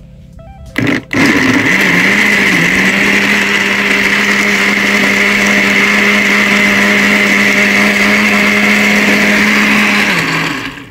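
Black+Decker countertop blender running on a jar of fruit and water being blended into juice. A short pulse and a brief stop come first, then a loud, steady motor whine for about nine seconds, wavering in pitch at first and then holding steady, before it winds down near the end.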